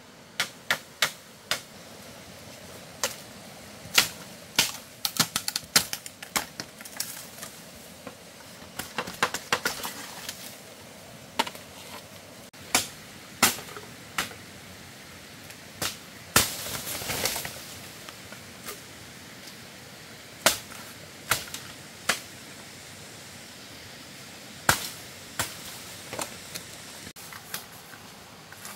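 A series of irregular sharp knocks and taps, some in quick clusters, with a brief scraping rustle a bit past halfway.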